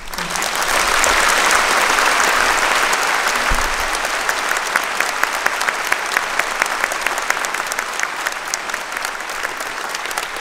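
Large audience applauding, starting abruptly and loudest in the first few seconds, then easing slightly as separate sharp claps stand out.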